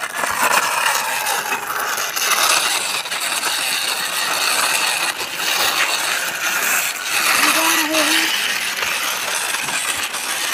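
Plastic toy dump truck loaded with stones being pushed across rough concrete: the small plastic wheels rolling and grinding steadily while the stones rattle and clink in the plastic tipper.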